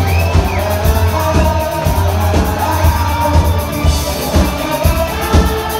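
Live rock band playing, recorded on a phone in the audience: a steady drum beat over a heavy bass line with guitar.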